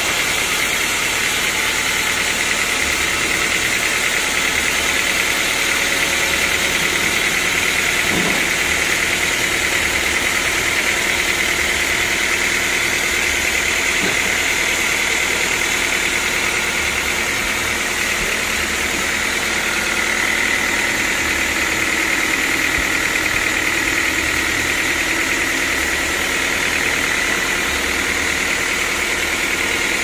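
Band sawmill running steadily, its blade sawing through a large mahogany block: a constant mechanical drone with a steady high whine.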